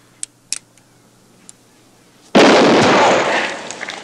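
A few sharp clicks, then a single loud handgun shot about two and a half seconds in, ringing out and fading over about a second.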